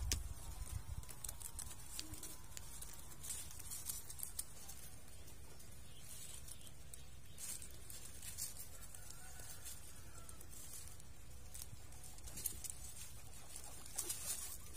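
Guinea pigs moving and nibbling in their pen: faint scattered clicks and rustles over a low steady hum, with a few louder clicks near the end.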